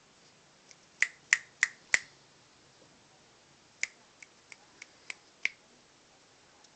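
Finger snaps: four sharp snaps about a second in, about three a second, then a run of six softer snaps a little later.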